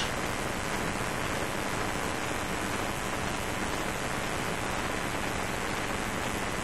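Steady, even hiss of background noise with no speech, opened by a single sharp click.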